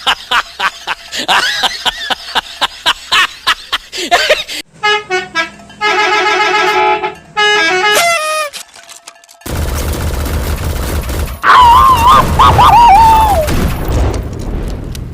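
Toy and vehicle sound effects: rapid clicks and warbling tones, then a multi-tone 'telolet' bus horn playing a short stepped tune that ends in a falling glide, then a low engine rumble with a loud wavering tone over it.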